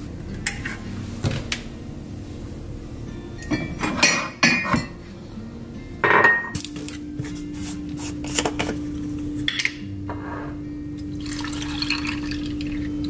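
Kitchen handling sounds: small clicks, a clatter of dishware, then a ceramic mug set down on the countertop with a sharp ringing knock about six seconds in. Near the end, coffee pours into the mug, over a steady low hum.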